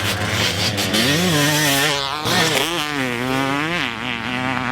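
A two-stroke Kawasaki KX250 motocross bike's single-cylinder engine being ridden, its pitch climbing and falling several times as the throttle is worked on and off.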